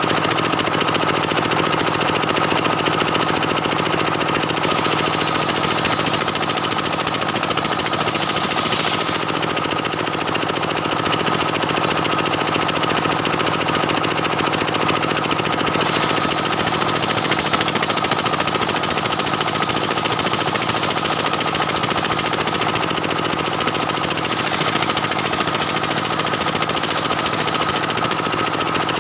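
Stihl 070 two-stroke chainsaw running steadily at high revs, ripping lengthwise through a dense jackfruit-wood log. The cutting hiss grows brighter for a few seconds about five seconds in, and again from about the middle on.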